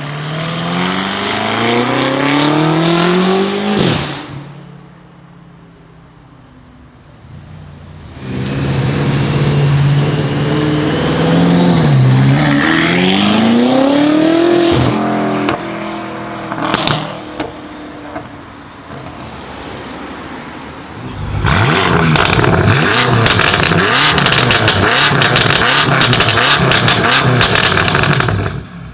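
BMW M5 F90's twin-turbo V8, running through a decatted Akrapovic exhaust, accelerating hard. Its pitch climbs steadily and cuts off abruptly about four seconds in. A second pull follows a few seconds later, dipping briefly as it shifts and rising again before stopping sharply. Then comes a long run of rapid, irregular exhaust crackles and pops over the engine noise.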